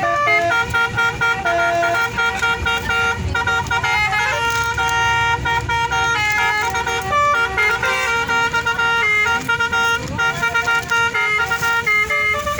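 A bus's 'telolet' horn, a set of tuned air horns, playing a tune: several notes sound together and step up and down in pitch, with a few short breaks.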